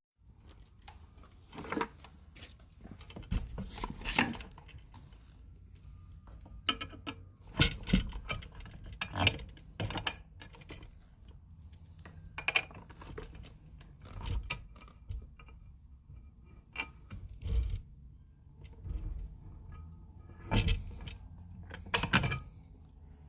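Irregular metallic clinks, rattles and knocks from handling metal hardware and tools while fitting an air hose reel.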